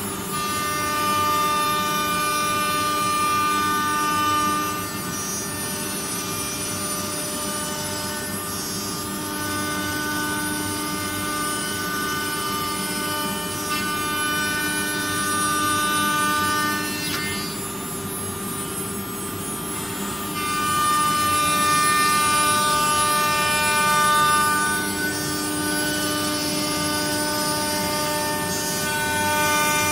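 CNC router spindle whining steadily as it machines wood, growing louder and quieter in stretches of several seconds.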